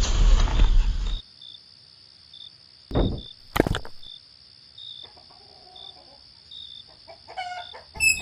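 Insects chirping steadily in a quiet outdoor background, with a loud rushing noise in the first second and two short sharp sounds about three seconds in; a short animal call comes near the end.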